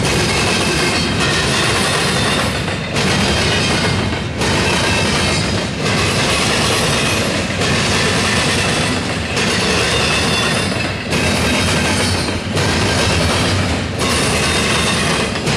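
Double-stack intermodal well cars rolling past on steel wheels, with a loud clickety-clack from the track. The rumble dips briefly about every one and a half to two seconds.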